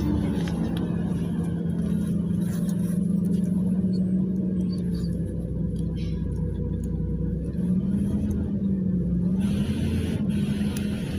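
Passenger-cabin sound of a LiAZ 5292.67 compressed-natural-gas city bus on the move: its Weichai WP7NG280E51 gas engine and the road give a steady low drone with a humming tone that wavers a little in pitch in the second half.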